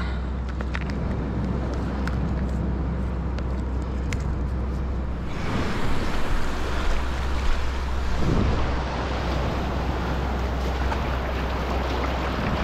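Wind buffeting the microphone over the wash of sea water against rocks; about five seconds in the hiss of the water grows louder and fuller and stays so.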